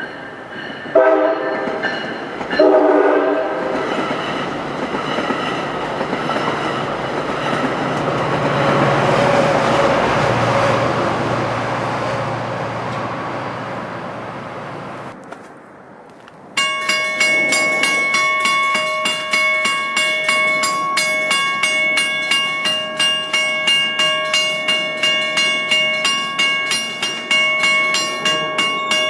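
Diesel commuter train sounding two short horn blasts, then rushing past with a broad rumble of wheels and engine that fades away. About halfway through it cuts sharply to a railroad grade-crossing bell ringing steadily, about twice a second.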